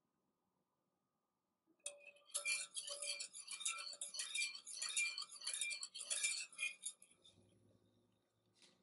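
Metal wire whisk beating thin batter in a glass mixing bowl: fast, continuous clinking of the wires against the glass. It starts about two seconds in and stops about five seconds later.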